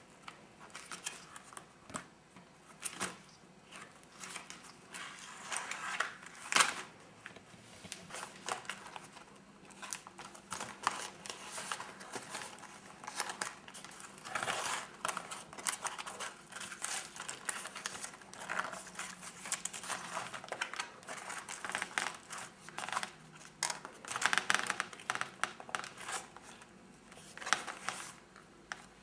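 Crumpled, wrinkled paper pages of a handmade sketchbook crinkling and rustling as they are turned and smoothed by hand. The rustles come irregularly, and the loudest is about six and a half seconds in.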